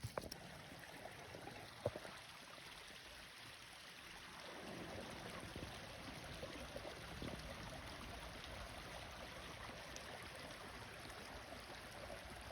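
Faint running water of a brook, steady, a little louder from about four seconds in, with a single sharp knock about two seconds in.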